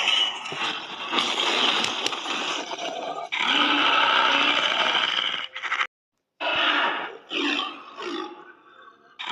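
A run of troll creature-voice sound effects: harsh growls and roars in several separate takes, with a clean cut to silence about six seconds in before shorter growls.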